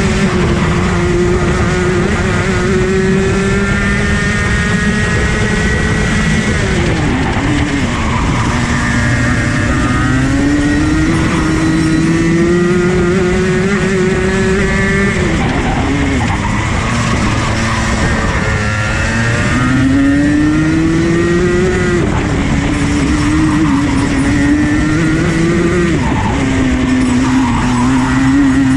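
Rotax Max 125cc two-stroke kart engine at racing speed, heard onboard over wind noise. Its pitch climbs slowly along the straights and drops sharply several times as the driver brakes for corners, then picks up again.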